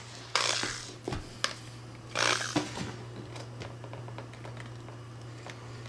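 Two brief scraping, rustling handling sounds as the rifle stock is shifted and the drill bit is set against the cheek piece, with a few light ticks. Under them is a steady low hum.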